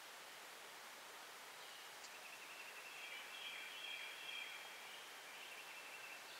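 Quiet woodland ambience with faint, high, repeated trilling of a distant small bird.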